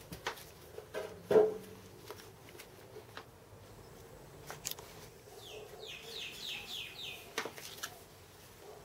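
Small machined metal parts clicking and tapping as they are handled and fitted together by hand, with the sharpest knock about a second and a half in. Midway there is a quick run of about eight short, high chirps.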